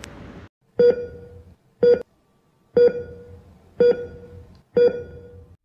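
Five short electronic beeps about one a second, each starting with a sharp click: a heart-monitor style pulse beep.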